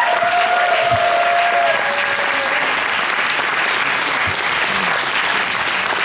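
Audience applauding in a concert hall, a dense steady clapping, with a held pitched tone rising over it for the first two seconds or so.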